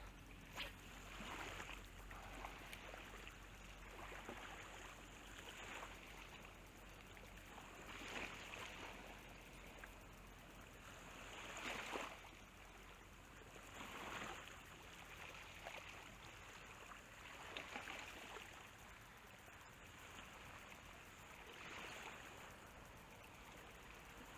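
Faint water sloshing and lapping in shallow tidal water, with soft swells every few seconds.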